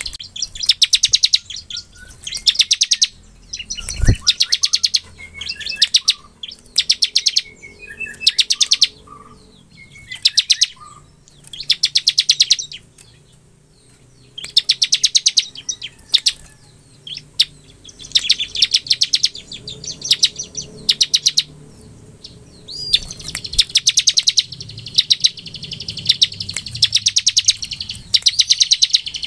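Bar-winged prinia (ciblek) singing its rapid, rattling 'ngebren' trill, high-pitched bursts of about a second repeated over and over with short pauses between. A single dull thump about four seconds in.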